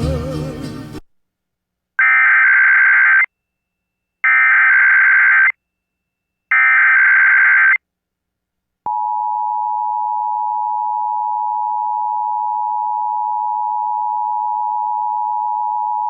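Emergency Alert System Required Weekly Test: after music cuts off about a second in, three bursts of the EAS SAME header's digital data tones play, about a second each. About nine seconds in, the steady two-tone EAS attention signal (853 and 960 Hz) begins and holds.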